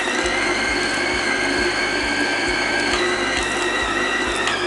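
Acekool 660 W electric stand mixer running steadily with a high motor whine, its dough hook kneading pizza dough, with a soft low thump repeating about three times a second.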